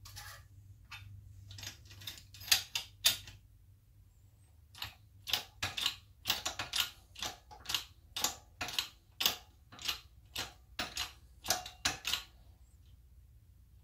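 Block of eucalyptus wood cracking as a bench press squeezes it: a run of sharp, irregular cracks and clicks, sparse at first, then coming thick and fast for several seconds before stopping about twelve seconds in.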